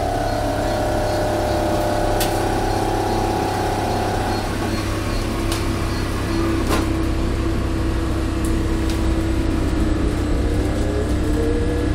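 Shuttle bus engine running and road noise heard from inside the bus cabin as it drives, with a few sharp clicks and rattles. The engine note rises near the end.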